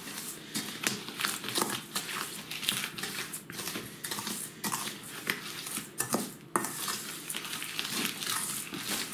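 A dry curing mix of coarse salt, sugar and ground spices being stirred in a stainless steel bowl: a continuous gritty scraping and rustling, full of irregular scratches of the grains against the metal, with one sharper click about six and a half seconds in.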